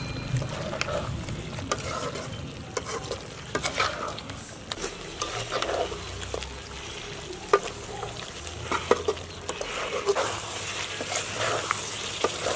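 Chicken pieces sizzling as they fry in a large metal pot, stirred with a slotted metal spatula that scrapes and clinks against the pot at irregular intervals.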